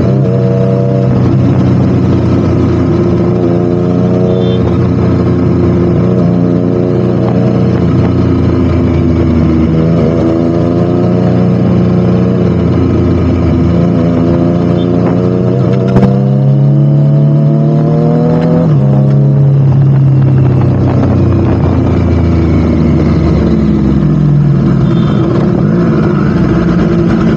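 Triumph Street Triple RS's three-cylinder engine running through a Spark slip-on exhaust, its pitch rising and falling again and again under the throttle, with one sudden drop about two-thirds of the way through.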